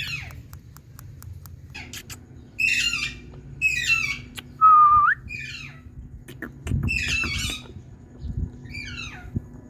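Indian ringneck parakeet calling: about five short, rough calls, with one clear whistled note about halfway through that is the loudest and rises at its end.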